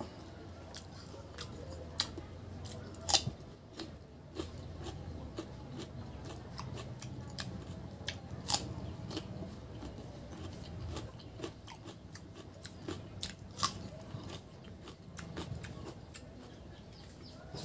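Close-up chewing and mouth sounds of a man eating pork curry and rice by hand, with wet smacking and a scatter of sharp clicks, the loudest about three seconds and eight and a half seconds in.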